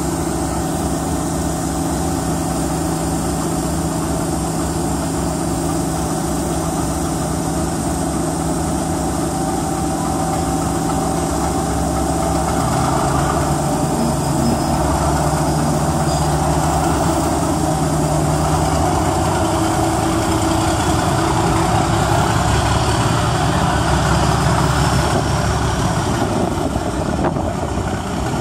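DRS Class 37 diesel locomotive's English Electric V12 engine running steadily. About halfway through, its note shifts and grows a little louder, and a faint high whine rises in pitch over the next several seconds.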